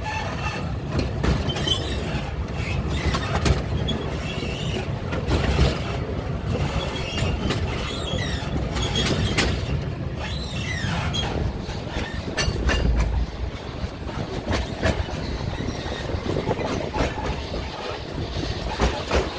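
Narrow-gauge steam train's carriages running along the track: a steady low rumble with frequent clicks and knocks of the wheels over the rails.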